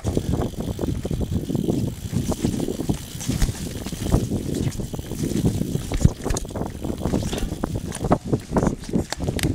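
Mountain bike ridden fast down a leaf-covered dirt trail: wind rushing over the microphone, tyres rolling over dry leaves and dirt, and frequent knocks and rattles from the bike over bumps.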